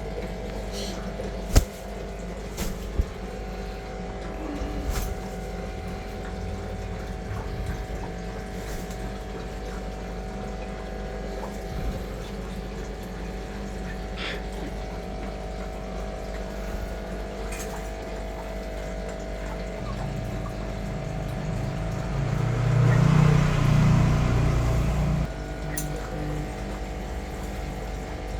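A steady mechanical hum with fixed tones and a watery hiss, broken by a few sharp clicks in the first three seconds. Near the end a louder, rough noise rises and lasts about three seconds before cutting off.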